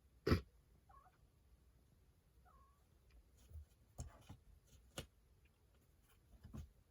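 A domestic cat giving two faint, short calls, among scattered thumps and taps. The loudest is a sharp thump just after the start.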